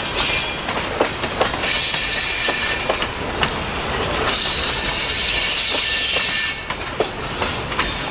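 Freight cars rolling past on a curve, their wheels clicking over the rail joints, with a high-pitched metallic squeal that swells twice. The filmer suspects the squeal could be a failing wheel bearing.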